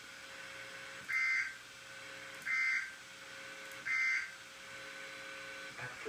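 Emergency Alert System end-of-message signal from a NOAA Weather Radio broadcast: three short bursts of SAME digital data tones, about 1.4 seconds apart, marking the end of the severe thunderstorm warning message. A faint steady hum lies underneath.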